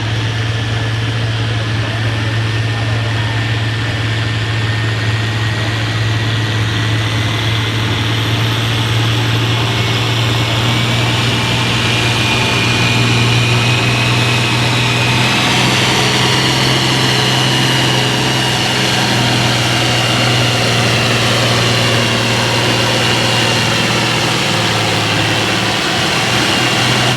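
Diesel farm tractor engine running hard under full load as it pulls a weight-transfer sled, with a thin high whine that rises steadily in pitch for about the first sixteen seconds and then holds.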